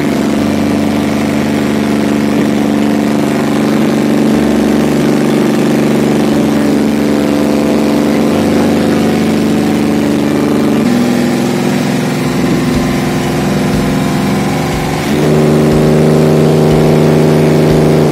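Enclosed lifeboat's diesel engine running steadily, heard from inside the cabin. About eleven seconds in its note dips a little, and about fifteen seconds in the engine speeds up and runs louder.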